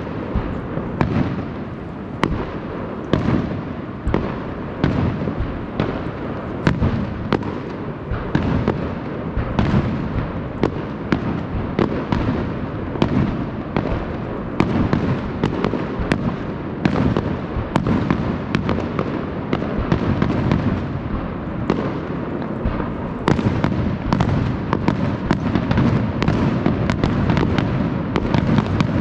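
Fireworks display: shells bursting in quick succession, sharp bangs every half second to a second over a continuous low rumble.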